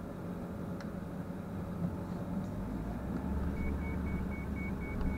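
Converted ambulance truck driving, its engine and road noise heard from inside the cab. The low rumble gets heavier a little past halfway. Near the end a steady high beeping starts, about three beeps a second.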